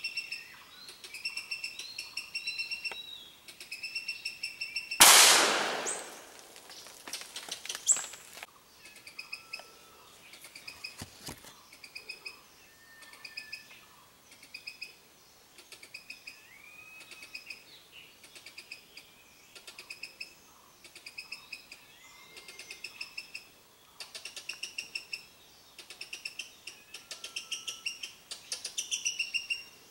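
Short repeated trains of rapid, high chirping calls go on throughout. About five seconds in comes a single loud gunshot that dies away over about a second, and a smaller sharp crack follows near eight seconds.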